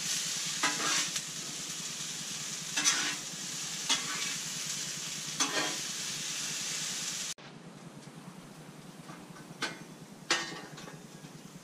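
Parboiled potatoes, baby portobello mushrooms, sweet peppers and onions sizzling in oil on a portable Blackstone griddle, stirred with a spatula that scrapes across the cooktop a few times. About two-thirds of the way through, the sizzle drops suddenly to a much quieter level, with a couple of faint scrapes after.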